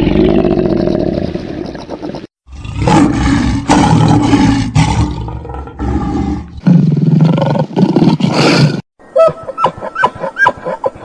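Loud animal roars or bellows in several spliced clips with short breaks between them, followed by a rapid run of short, higher-pitched animal calls near the end.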